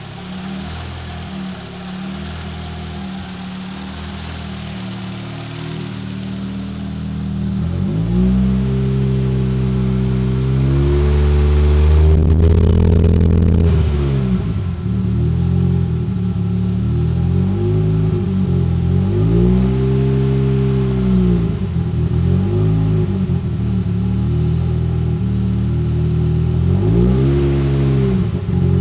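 Audi Sport quattro's turbocharged 20-valve five-cylinder engine, freshly built and on its first run, idling steadily, then from about eight seconds in revved up hard once around the middle and blipped repeatedly, each rev rising and falling back toward idle.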